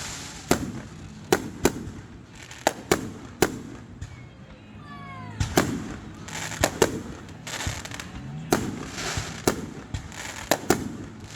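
Fireworks going off: more than a dozen sharp bangs at irregular intervals, some in quick pairs, with a brief burst of whistling about halfway through.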